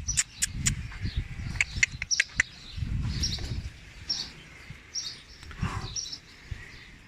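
Small birds chirping, short high chirps repeating about once a second, with a cluster of sharp clicks in the first two and a half seconds and low thumping rumbles underneath.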